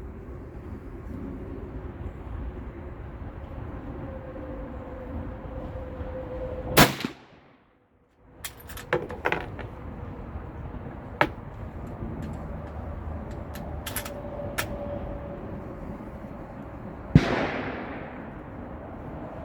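Two rifle shots from a Savage Model 99 lever-action in .300 Savage, about ten seconds apart, each a sharp crack with a short ringing tail. Between them come several metallic clicks and clacks as the lever action is worked. The sound cuts out for about a second right after the first shot.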